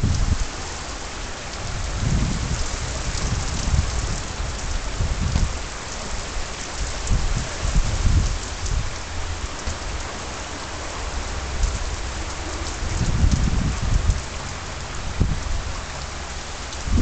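Heavy rain pouring down onto pavement and lawn in a steady hiss, with irregular low gusts of wind buffeting the microphone every few seconds.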